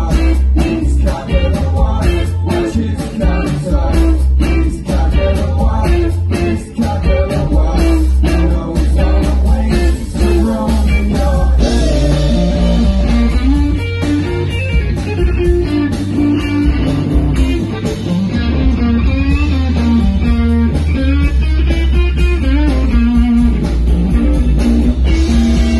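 Live rock band playing, with electric guitars and a drum kit over a steady beat. About twelve seconds in, the arrangement changes to a fuller, cymbal-heavy section.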